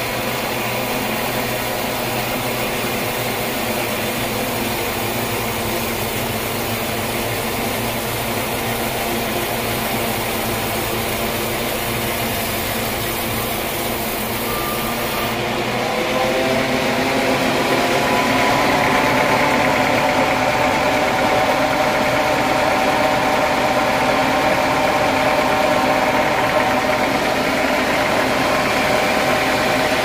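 Band sawmill running with its blade cutting lengthwise through a hardwood timber: a steady machine drone with a whine. About halfway through it grows a little louder and the whine rises higher.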